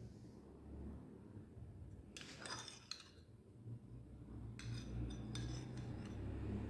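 Faint clinks and scrapes of a spoon in a container holding a thick honey-and-olive-oil mixture, as it is stirred and scooped: a few light taps about two seconds in and again near the five-second mark, over a low steady hum.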